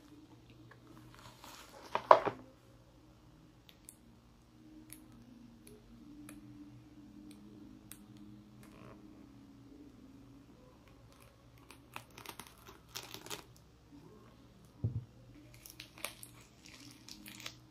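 Plastic packaging wrap being slit with a craft knife and crinkled and pulled open by hand, in short spells of scraping and crinkling; the loudest is a sharp scrape about two seconds in. A soft low thump comes a little before the end.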